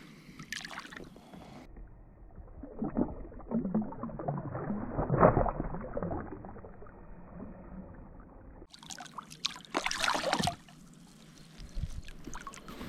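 Water splashing and sloshing around a small fishing boat, in irregular bursts, muffled for a stretch in the middle and brighter near the end.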